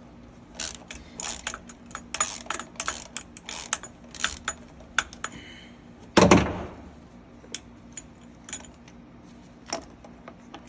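Ratchet wrench clicking in irregular runs while backing out an intake manifold bolt on a Mercruiser 5.0 MPI engine, with small metal clinks. One loud thump comes a little past six seconds in, followed by a few scattered clicks.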